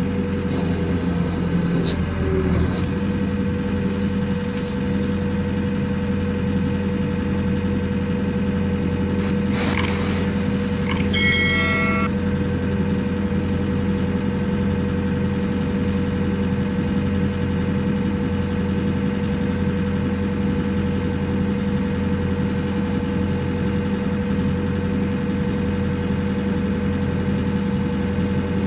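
Hitachi excavator's diesel engine idling steadily with an even hum. About eleven seconds in there is a short run of brief high-pitched tones.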